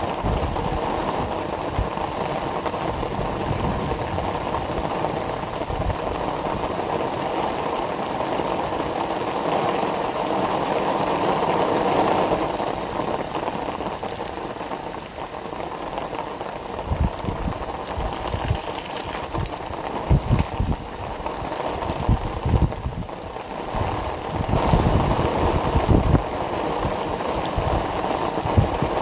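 Steady rain falling, a continuous hiss, with irregular low rumbling gusts throughout.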